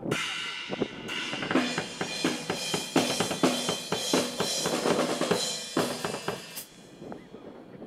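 Rock band music: a drum kit with cymbals keeping a steady beat over pitched guitar and bass notes, stopping near the end.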